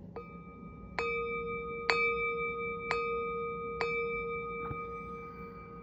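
Brass singing bowl struck four times with a wooden striker, about once a second. Each strike adds to a sustained ring of several steady tones that slowly fades. There is a light tap just before the first strike and a softer one near the end.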